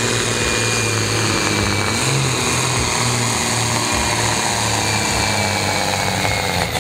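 Ford 9600 pulling tractor's turbocharged diesel engine running at full load, held steady as it drags a weight-transfer sled down the track.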